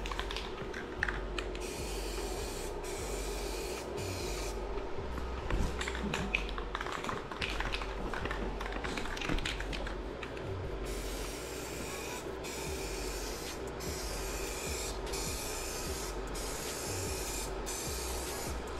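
Aerosol spray can of metallic silver paint hissing in short stop-start passes, in two runs: one a couple of seconds in and a longer one from about the middle on. Between the passes come rustles and light clicks.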